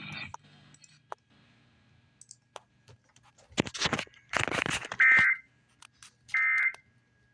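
Short rustling or handling noises, then an electronic alert device giving short high beeps, twice, about a second and a half apart, the sign of a new incoming alert.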